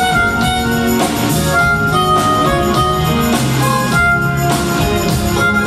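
Harmonica playing a melody of long held notes over a live band with guitar, keyboards, bass and drums.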